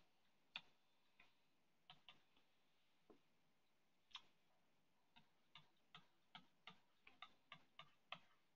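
Faint clicks of a stylus tip tapping on a tablet's glass screen during handwriting, scattered at first, then coming about three a second in the second half.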